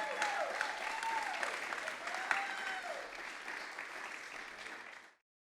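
Audience applauding, with a few long whistles that rise and fall in pitch; the applause fades and cuts off about five seconds in.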